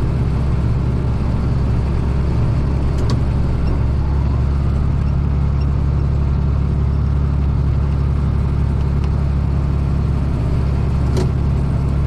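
Farm tractor engine running steadily under load in low gear, driving a PTO bush hog (rotary cutter) through heavy weeds, heard from inside the cab. The bush hog's slip clutch, just refitted with tightened clutch plates, is holding rather than slipping.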